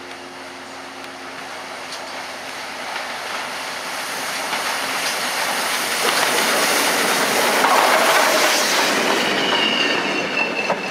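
J94 'Austerity' 0-6-0 saddle tank steam locomotive, with brake vans in tow, approaching and passing close by. The rumble of its running and of the wheels on the rails grows steadily louder and is loudest about six to nine seconds in. Near the end a high, thin wheel squeal comes in.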